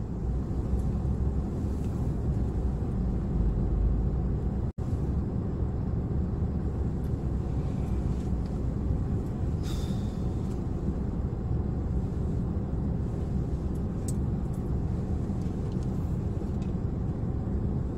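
Steady low rumble of a car heard from inside its cabin, with a short hiss about ten seconds in.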